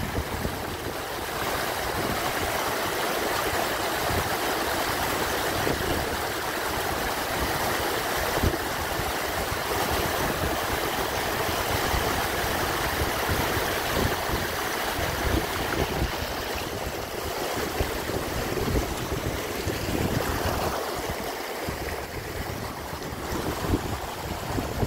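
Muddy storm runoff rushing down a rocky channel, a steady noise of flowing water, with wind gusting on the microphone.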